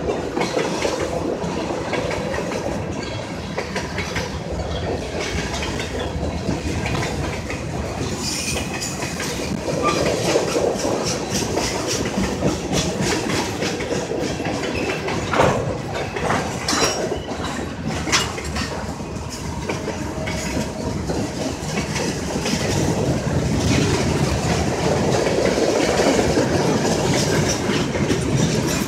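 Freight train of autorack cars rolling past: a steady rumble of steel wheels on rail with repeated clicking over the rail joints, and one sharper metallic clank about halfway through.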